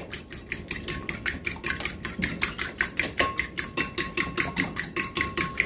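A fork beating egg yolks and evaporated milk in a bowl, the tines clicking quickly and evenly against the bowl, about seven strokes a second.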